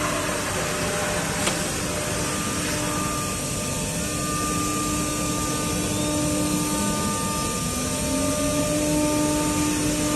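Automatic door-lock drilling machine running: a steady motor and spindle whine with several held tones over a hiss. A sharp click comes about a second and a half in, and near the end a low hum rises in pitch and settles.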